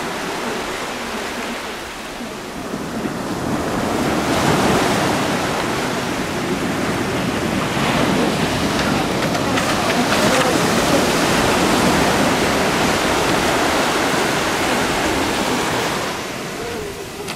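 Ocean surf breaking and washing up over the beach, a steady rush that swells about four seconds in and eases off near the end.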